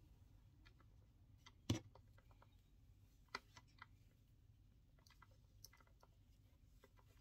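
Faint, scattered small clicks and taps from hands working macrame cord around a metal keychain clasp on a wooden table, with one sharper knock about two seconds in and a smaller one a little later.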